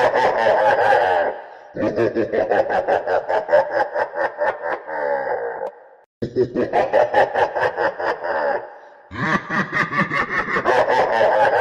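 Evil laugh sound effect, looped: a low voice letting out rapid 'heh-heh' pulses in repeated bursts of a few seconds with short gaps between, one burst trailing off in a falling note about halfway through.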